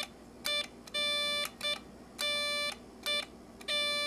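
Code practice oscillator's single-pitched, buzzy beep, keyed by hand on a straight Morse key into slow dashes and dots: dah-dit-dah-dit, then again, as in Morse practice.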